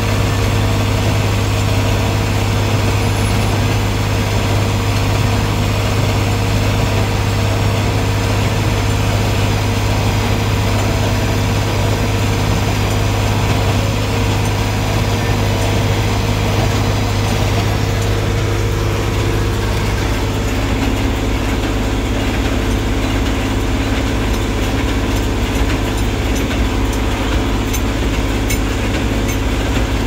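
Tractor engine running steadily under load, a strong low drone heard from inside the cab, with a John Deere 327 small square baler working hay behind it. About two-thirds of the way through, the higher hiss drops away and the mix of the engine and machinery sound shifts.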